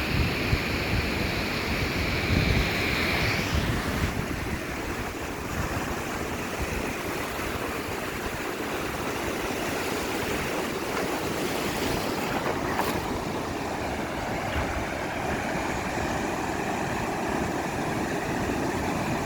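Sea surf washing onto a beach, with wind buffeting the microphone. A steady high hiss fades out about three and a half seconds in.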